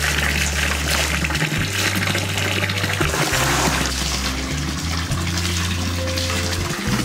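A stream of water pouring and splashing into a basin of floating apples, over background music with a low, held bass line.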